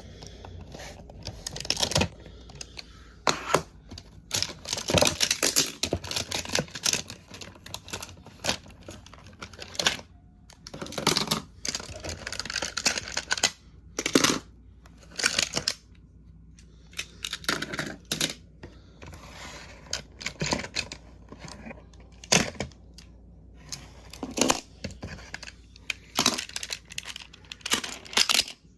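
Unboxing and handling of a set of plastic magnetic building tiles: crinkling and tearing of plastic packaging, mixed with irregular sharp clicks as the tiles are taken out and knock together.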